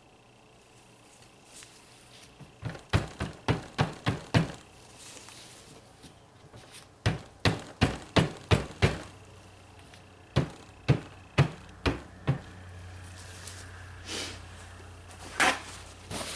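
A silicone loaf mold full of fresh soap batter being knocked down on a countertop: two quick runs of dull knocks, about four a second, then a few slower ones. This is done to settle the batter and bring up air bubbles.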